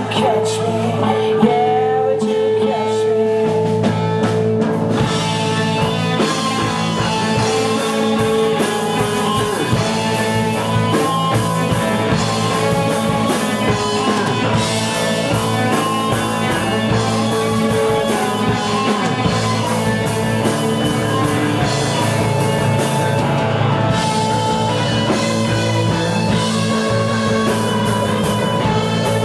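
A live rock band playing, with a drum kit keeping the beat under sustained melodic instruments; the sound fills out with more cymbal and high-end from about five seconds in.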